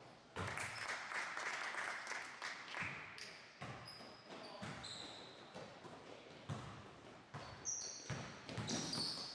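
A basketball bouncing on a hardwood gym floor as it is dribbled, with irregular knocks about a second apart, and sneakers squeaking on the court in short high squeaks.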